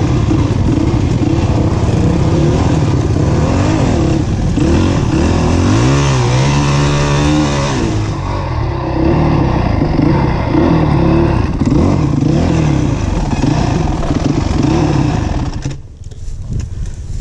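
Dirt bike engine running along a trail, its pitch rising and falling with the throttle, with one long rev up and back down about six to seven seconds in. Near the end the engine sound drops away sharply to a lower level.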